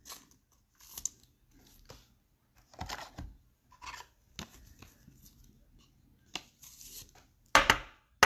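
A trading card being slid into a clear plastic sleeve and holder: scattered rustles and scrapes of plastic, loudest about three seconds in and again near the end.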